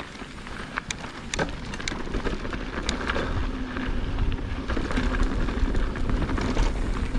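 Mountain bike rolling off down a dirt trail: wind rumble on the camera microphone and tyre noise grow louder as the bike picks up speed, with a few sharp clicks and knocks in the first few seconds.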